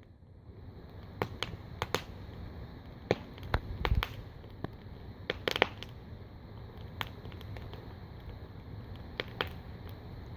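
Wood campfire burning in a steel wheel rim fire pit, crackling with sharp pops at irregular intervals, the pops coming thicker and louder about three to six seconds in.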